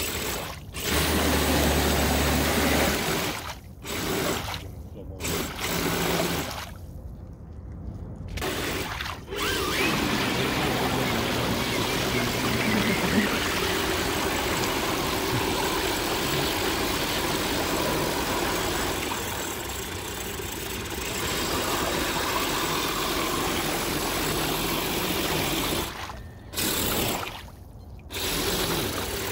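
Radio-controlled 4x4 mud trucks' electric motors and drivetrains whining, rising and falling with the throttle, as their tyres churn and splash through deep muddy water. The sound drops away briefly a few times when the trucks pause.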